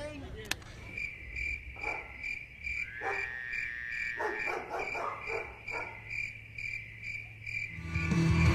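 Crickets chirping steadily, about three to four chirps a second, with a few other brief animal calls mixed in; music comes in near the end.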